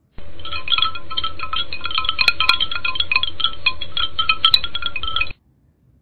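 An added sound clip of rapid, high tinkling notes over a steady low hum. It starts abruptly and cuts off after about five seconds.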